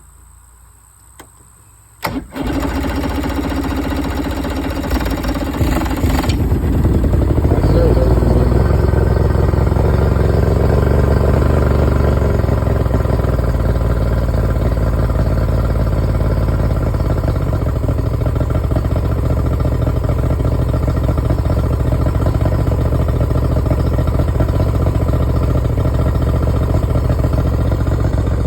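Yamaha 70 outboard motor being cranked by its electric starter about two seconds in, catching after a few seconds and settling into steady running. It is run out of the water, without cooling water.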